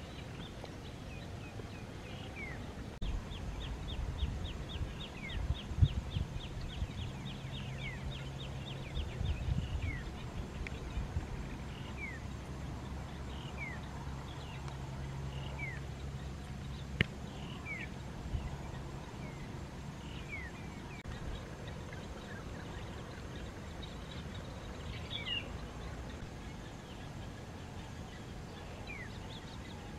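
Small birds chirping again and again with short falling calls, with a quick run of ticking chirps a few seconds in, over a low rumble with a few soft thumps.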